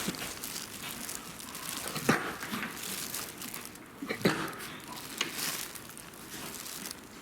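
A horse forcing out air in two sharp, explosive bursts about two seconds apart, over a rustling background. The uploader can't tell whether these are coughs or sneezes and wonders whether the horse has a cold.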